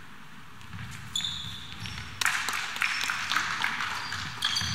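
Basketball being dribbled on a gym court, with sneakers squeaking in short high chirps from about a second in and again near the end. The general noise of the hall grows louder about two seconds in.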